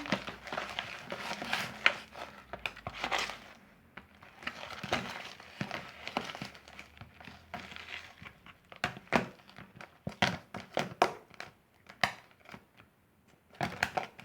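Homemade white school glue and shaving-cream slime, set with borax activator, being mixed and worked: irregular sticky clicks, pops and crackles, coming in quicker clusters in the second half as it turns into slime.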